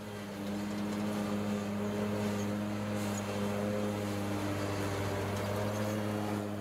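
Ferris zero-turn riding mower's engine running steadily as the mower drives over grass, a low, even drone.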